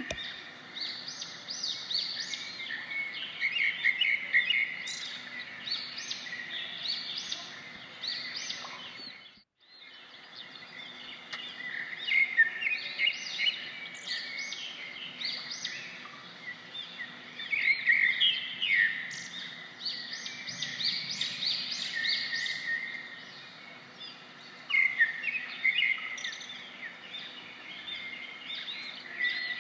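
Small birds chirping and twittering, many short calls overlapping, against a faint outdoor background; the sound cuts out completely for a moment about nine seconds in.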